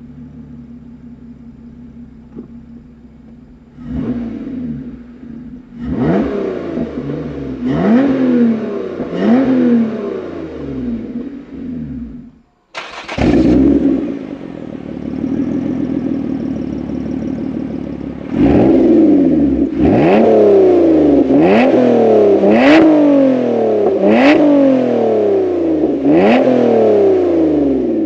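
Lotus Evora's V6 with a loud aftermarket exhaust, revved from idle in a series of sharp blips, each rising and falling in pitch. After a brief cut, the twin tailpipes give a loud flare that settles to idle, then a faster run of about eight blips.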